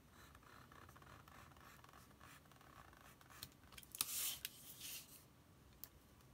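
Utility knife blade drawing through folded paper on a cutting mat, a faint steady scratching, with louder scrapes about four and five seconds in.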